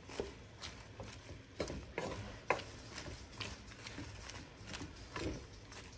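Wooden spoon stirring and tossing shredded cabbage in a frying pan: faint, irregular taps and scrapes of the spoon against the pan.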